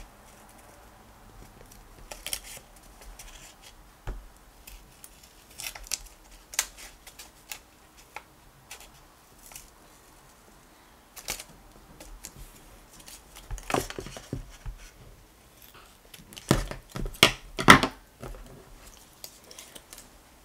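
Red-handled hand scissors cutting paper in short, irregular snips, with the sheet rustling between cuts. The snips come thicker and louder in the last few seconds.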